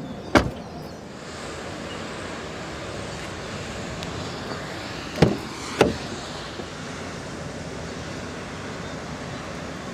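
The rear passenger door of a Mercedes-Benz E63 AMG S sedan swings shut with one sharp slam about half a second in. About five seconds in come two quicker clacks half a second apart as the front passenger door is unlatched and opened, over a steady background hiss.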